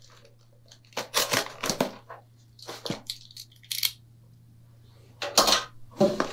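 Cardboard shipping box and its packaging being cut open and handled: a run of short scraping, tearing and rustling noises, the loudest about five and a half seconds in.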